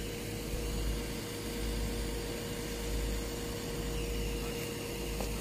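A steady machine drone with one constant hum-like tone, under a low, gusting rumble of wind on the microphone.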